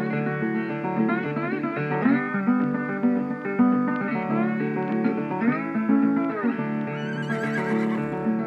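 Plucked guitar music with notes that slide up and down in pitch.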